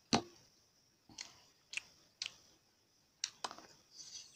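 Close-miked mouth sounds of eating a juicy steamed chicken momo: about six separate wet clicks and smacks of chewing, with a brief hiss near the end.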